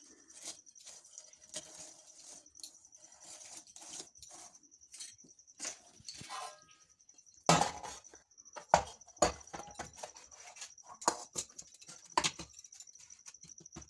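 Steel-on-steel scrapes and clinks as a spoon is worked around the edge of a steel cake tin to loosen the cake, then louder knocks as the tin and a steel plate are handled together to turn the cake out, the loudest about halfway through and near the end. A faint steady high-pitched whine sits underneath.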